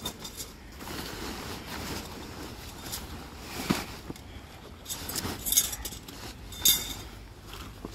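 Gazelle T4 pop-up tent being folded and pressed down, its fabric rustling and crumpling unevenly, with a few sharp clinks from its hardware, first about halfway through and again near the end.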